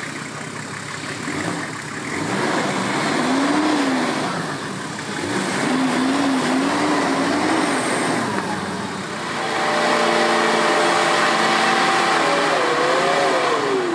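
Off-road 4x4's engine revving as it works through mud. The revs rise and fall twice, then hold high and steady for about three seconds before dropping away near the end.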